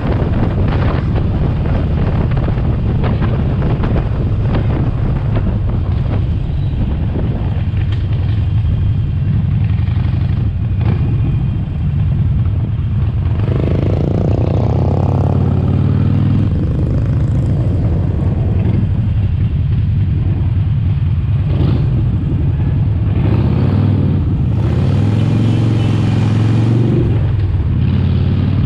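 Harley-Davidson Sportster Forty-Eight's air-cooled V-twin engine and exhaust running on the move, a steady low note that shifts in pitch a few times as the throttle changes.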